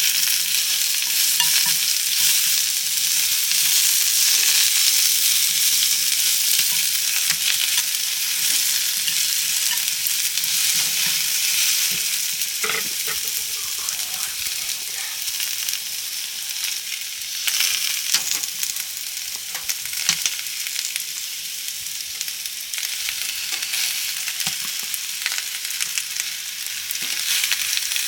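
Food sizzling and frying in a pan: a steady hiss with scattered small crackles and a few sharper clicks.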